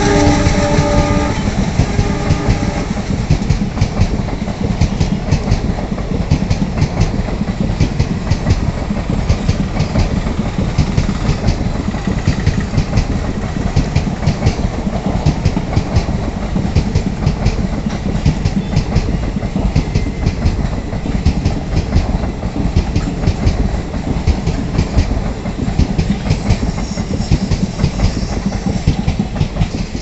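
Express train hauled by an ALCo WDG-3A diesel locomotive running past: the locomotive's engine chugging over the dense, steady clatter of wheels on rail joints. The locomotive horn's chord fades out in the first second or two.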